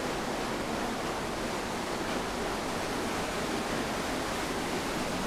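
Steady rush of a waterfall pouring into a rock pool in a stream gorge.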